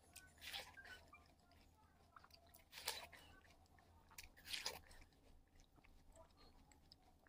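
Close-up crunching and chewing of frozen watermelon, with three louder crunchy bites near the start, about three seconds in and past halfway, and small wet clicks of chewing between them.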